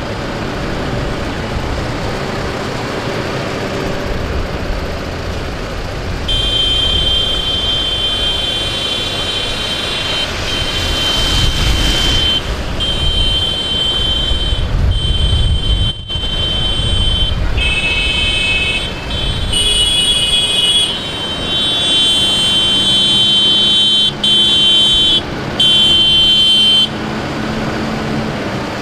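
A column of farm tractors driving past with engines running, and one passing close about eleven seconds in with tyre hiss on the wet road. From about six seconds in, vehicle horns sound repeatedly in long, high blasts, some held for a second or two and several overlapping, as is usual in a protest convoy.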